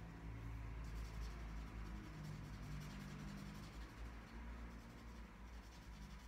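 Felt-tip marker scratching on paper in quick, repeated colouring strokes, easing off about five seconds in, over a low steady hum.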